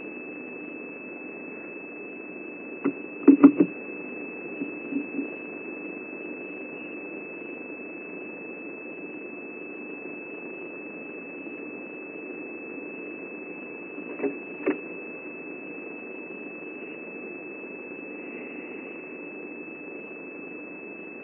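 Steady background hiss with a thin, continuous high whine, broken by a quick cluster of knocks about three seconds in and two sharper knocks around fourteen seconds.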